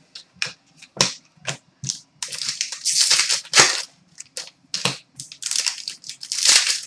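Trading cards and their packaging being handled: a string of sharp clicks with longer swishing, sliding noises in two busier stretches, one in the middle and one near the end.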